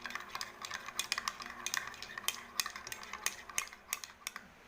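A spoon stirring instant coffee into hot water in a glass, dissolving it, with quick, irregular clinks against the glass that thin out and stop near the end.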